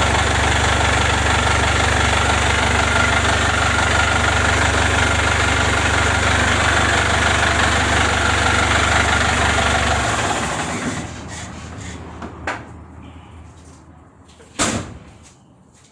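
Perkins Q20B turbocharged four-cylinder diesel in a 1981 Chevrolet Veraneio, idling steadily, then shut off about ten seconds in. After it stops there is a faint click and then a sharper knock near the end.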